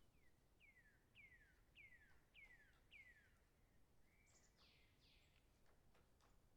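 A bird calling: a run of six clear whistled notes about 0.6 s apart, each sliding down in pitch, followed a second later by a harsher, fuller call. Faint short taps sound in the background throughout.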